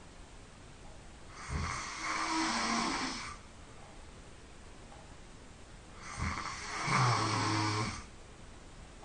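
A person snoring, described as loud: two long snores about five seconds apart, each lasting about two seconds. The second ends in a low buzzing hum.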